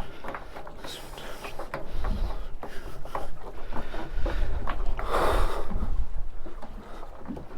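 Wind rumbling on the microphone aboard a small boat, with scattered knocks and clicks of gear being handled and a louder rushing noise about five seconds in.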